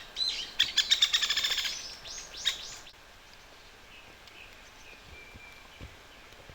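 Songbird singing: short high chirps, then a fast trill of rapidly repeated notes about a second in, and a few more calls, after which only faint distant chirping remains.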